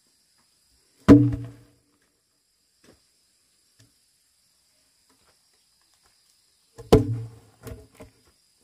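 Heavy cut timber logs being dropped and knocking onto other logs on the ground: a loud hollow wooden knock about a second in, then another near the end followed by two smaller bounces.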